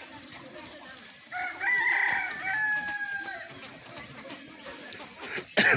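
A rooster crowing once, a pitched call of about two seconds that ends on a held, slightly falling note. Near the end comes a brief, loud bump, the loudest sound here.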